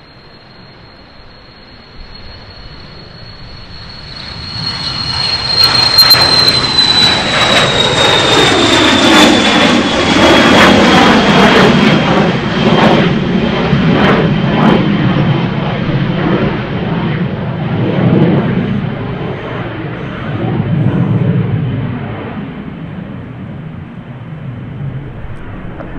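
Cessna Citation 560 business jet passing close by on departure. Its turbofans' high whine rises slightly and then drops in pitch as it goes past about six seconds in, over a broad rumble that peaks and slowly fades as it climbs away.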